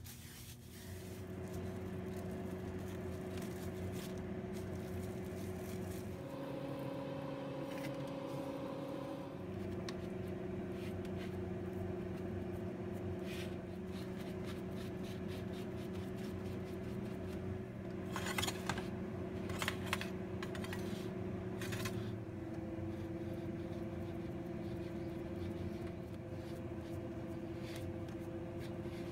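Small electric motor running steadily. It starts about a second in, runs at a higher speed for a few seconds, then drops back, and shifts down slightly near the end. Some clicks and scraping come about two-thirds of the way through.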